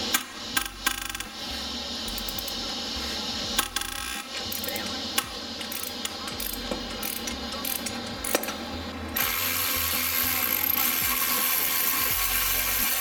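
Ratchet wrench clicking in short, irregular runs as it turns an engine-mount bolt. About nine seconds in, a cordless electric ratchet starts running steadily.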